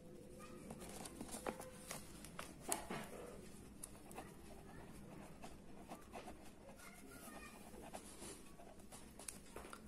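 Pen writing on paper: faint scratching with scattered light ticks and clicks.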